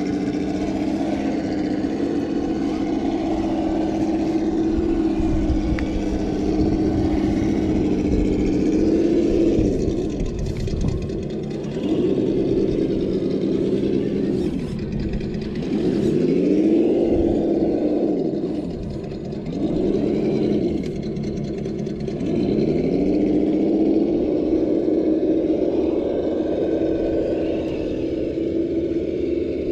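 Electric motor and gearbox whine of a Traxxas TRX-4 Land Rover Defender scale RC crawler. It holds a steady pitch at first, then rises and falls in pitch about five times in the second half as the throttle is worked.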